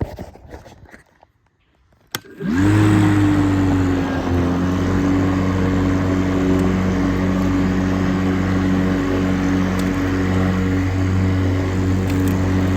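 Lawn mower's small petrol engine starts about two seconds in, spinning up quickly to speed, then runs steadily at an even pitch.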